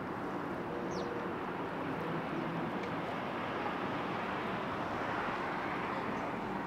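Steady city traffic noise, a continuous hum of vehicles, with a brief high chirp about a second in.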